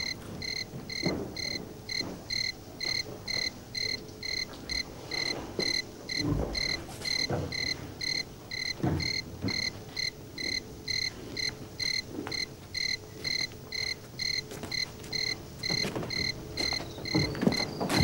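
Crickets chirping in a steady, even run of short high chirps, about two to three a second, with a few low thumps scattered among them.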